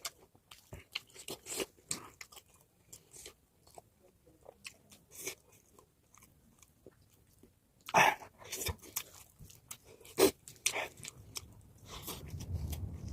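A person eating close to the microphone: chewing, with scattered crunchy, clicky bites. Two louder bites come about eight seconds in and again two seconds later, and a low rumble starts near the end.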